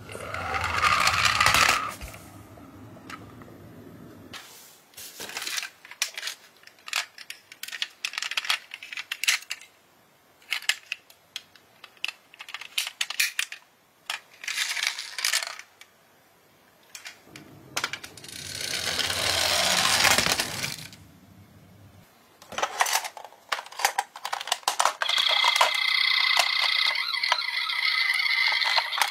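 Die-cast toy cars rolling down a wooden board with a rumble, followed by many small clicks and clinks as metal toy cars are handled in a cardboard box. A second rolling rumble comes a bit past the middle. From near the end, a toy ambulance's electronic siren sounds as a steady set of high tones.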